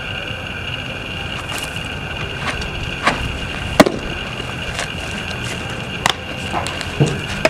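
Baseball pitch smacking into a catcher's mitt, one sharp pop among a few lighter knocks, over a steady hiss.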